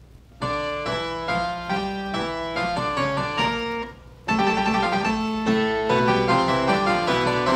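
Background piano music, a run of sustained notes that begins shortly into the clip, breaks off briefly about four seconds in, and then resumes.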